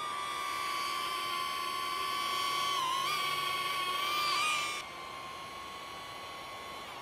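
DJI Neo mini drone's propellers giving a steady high-pitched whine. It grows louder as the drone comes close, wavers in pitch as it manoeuvres, and drops to a quieter whine about five seconds in.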